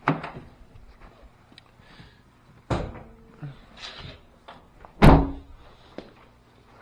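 Several thunks and clunks from a vehicle's body being handled, such as a door or hood being opened and shut. There are three main knocks, the loudest about five seconds in, with lighter clicks between them.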